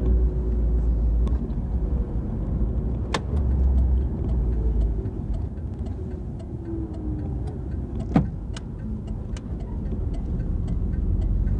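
Car driving at low speed, heard from inside the cabin: a steady low engine and tyre rumble. Two sharp clicks come about 3 and 8 seconds in, the second the loudest.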